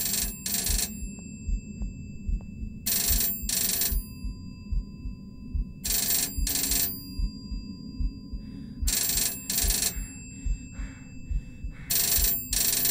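A telephone bell ringing in the British double-ring pattern, two short rings and a pause, repeating every three seconds, five times. Underneath it runs a steady low rumble with faint low thumps, and a few steady high tones.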